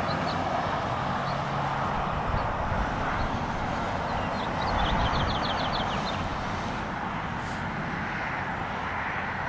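Steady outdoor background rush, with faint high bird chirps and a quick run of ticking notes, like a bird's trill, about five seconds in.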